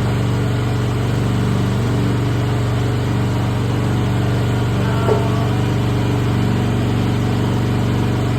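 Mini excavator's small engine running steadily, with one short sharp knock about five seconds in.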